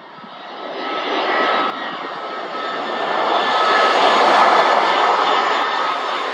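Jet engines of an Airbus A320-family airliner on final approach with gear down, passing overhead. Their rushing noise with a steady high whine grows louder and peaks about four seconds in.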